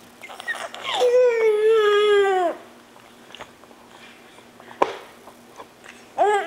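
Baby fussing: one long whining cry about a second in that falls in pitch as it ends, and another starting near the end. A single sharp click comes between them.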